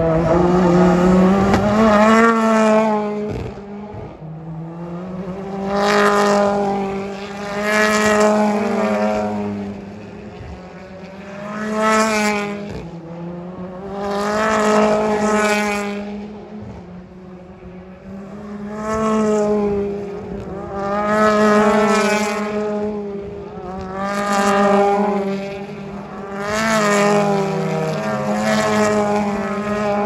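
British Touring Car Championship cars with turbocharged two-litre four-cylinder engines racing past one after another, roughly one every two to three seconds, each engine note swelling and fading as the car goes by.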